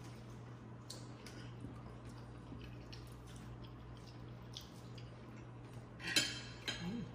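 Knife and fork clinking and scraping on a plate as crab legs are cut apart and eaten: scattered light taps and clicks, with a louder clatter about six seconds in. A steady low hum runs underneath.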